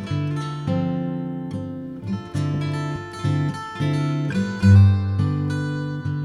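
Background music played on acoustic guitar, plucked and strummed notes in a steady run of chords.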